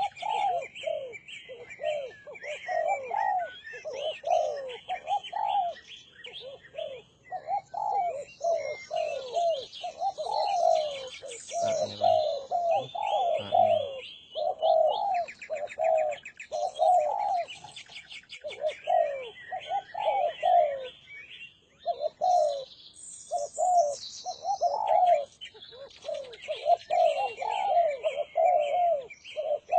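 Several derkuku doves cooing over and over, their calls overlapping, while smaller birds chirp and trill at a much higher pitch.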